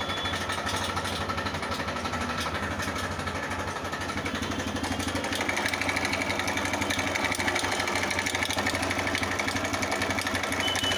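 TVS Raider 125's single-cylinder engine idling with a fast, even ticking rattle, the bad engine noise the bike is brought in for. About halfway through it gets a little louder and the rattle turns sharper.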